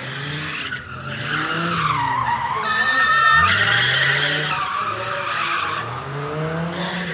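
BMW E46 3 Series drift car sliding in smoky circles: the engine revs up and down again and again while the spinning rear tyres squeal and screech on the tarmac. The loudest point comes about three seconds in, with a brief steady high-pitched screech and a sharp rev.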